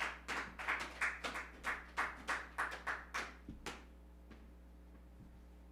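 Small audience clapping: distinct claps at about three or four a second that die away about three and a half seconds in. A low steady hum is left under the quiet room.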